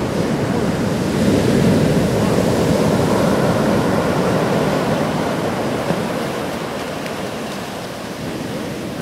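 Heavy shore-break surf: a steady rush of breaking waves and churning whitewater, swelling about a second in and easing off a little after about six seconds.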